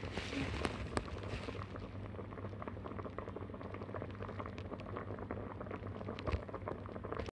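Pot of water at a rolling boil with chunks of food in it: steady bubbling with many small pops.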